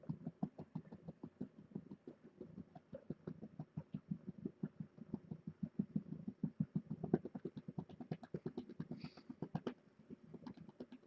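Siamese-type mother cat purring hard, a fast pulsing purr, while a hand pats and rubs her rump.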